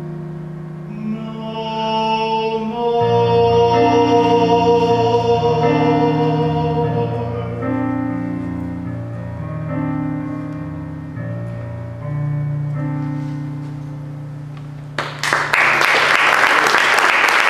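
A digital keyboard plays the slow closing chords of a show tune, with a long held note with vibrato over them a few seconds in. Audience applause breaks out near the end as the song finishes.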